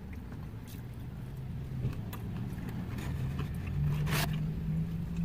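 A motor vehicle's engine hum, heard from inside a parked van, growing louder and rising slightly in pitch as it draws near. Light clicks and a short scrape about four seconds in.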